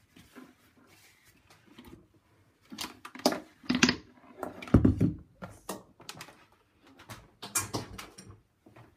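Knocks and clatters of a plastic blender jug full of mango milkshake being lifted off its motor base and set down on a counter. The loudest is a deep thump a little before the middle.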